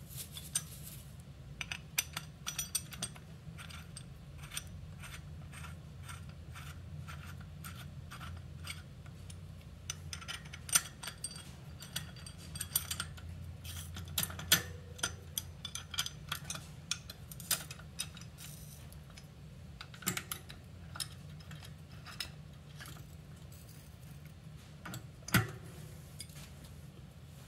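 Small metal clicks and clinks, scattered irregularly, as nuts, bolts and washers are handled and fitted by hand onto a motorized-bicycle rear sprocket and its hub mount, with a sharper click near the end. A steady low hum runs underneath.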